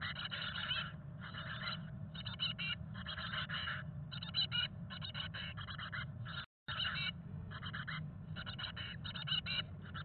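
Chickadee nestlings begging inside the nest box: bursts of rapid, raspy high-pitched chattering calls, over a steady low hum. The sound breaks off briefly about six and a half seconds in.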